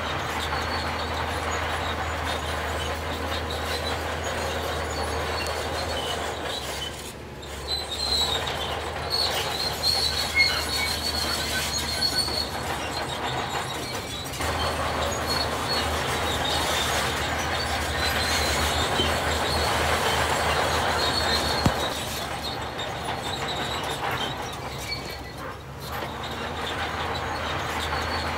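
Heavy earthmoving machinery working: a diesel engine runs steadily under dense clanking, with high metal-on-metal squeals rising and falling at times, twice for several seconds.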